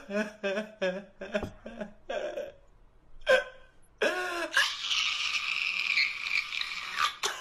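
A man laughing in short rhythmic bursts, about three a second. About four seconds in, a steady harsh high noise starts and lasts about three seconds before cutting off sharply.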